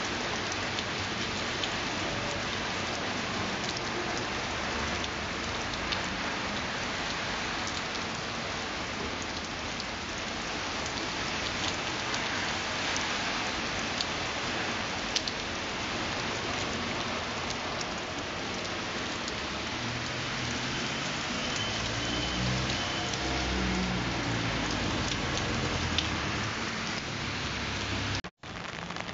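Steady rain falling on wet pavement, an even hiss with a few sharp drop ticks. A low rumble joins it about two-thirds of the way through. The sound cuts out for a moment near the end.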